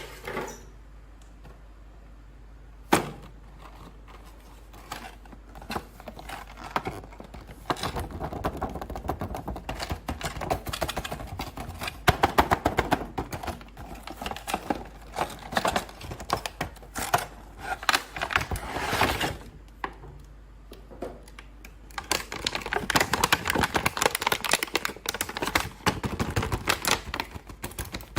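Toy packaging being handled and opened: two sharp clicks, then long runs of dense, rapid plastic clicking and crackling with a short lull partway through.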